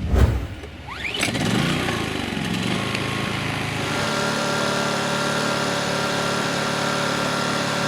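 2,000-watt Briggs & Stratton inverter generator running: its engine rises in speed about a second in, then settles into a steady, even hum.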